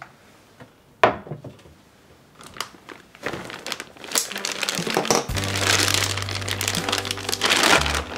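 Large plastic bag of bread flour being unclipped and opened, its plastic crinkling and rustling, with a sharp click about a second in. Soft piano background music comes in about five seconds in.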